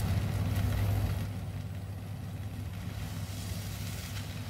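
Stir-frying noodles in a wok, tossed with tongs: a soft sizzle and rustle with a few light clicks of the tongs, livelier in the first second. Underneath runs a steady low mechanical hum, the loudest sound throughout.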